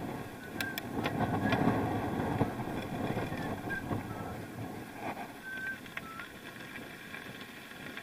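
Riding noise from a bike on a rough track, heard on an action camera: a low rumble of wheels and wind on the microphone, with rattling clicks and a few short high squeaks. It is loudest in the first couple of seconds and eases off after that.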